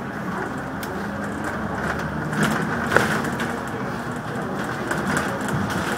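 Cabin noise on the upper deck of a moving double-decker bus: steady running noise with knocks and rattles from the body and fittings, the sharpest click about halfway through.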